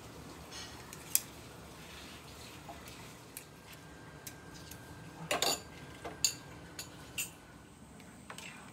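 Metal spoon clinking against a ceramic bowl and a stainless steel pot while fish paste is scooped into simmering stock: scattered sharp clinks, the loudest about a second in and a quick cluster about five seconds in.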